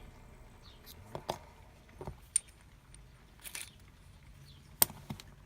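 Small metal clicks and taps from a Ruko euro cylinder lock being handled as it is taken apart, several sharp, separate knocks of metal parts.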